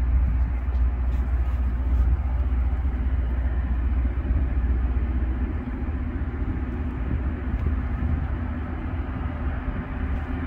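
LORAM rail grinder approaching slowly, its diesel engines giving a steady low rumble with a constant hum.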